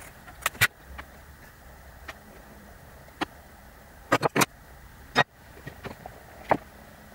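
Scattered sharp clicks and knocks of wooden parts and tools being handled on a workbench during a glue-up: two just after the start, a quick run of three about four seconds in, then single knocks.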